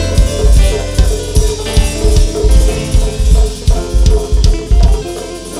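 Hip-hop beat playing: a heavy bass drum and snare pattern under sustained synth or instrument tones, with the deep bass dropping out about five seconds in.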